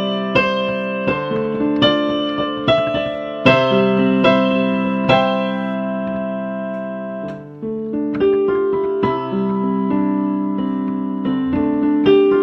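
Solo piano playing a composed piece: single notes and chords struck every half second or so and left ringing, with a brief dip in loudness about seven and a half seconds in.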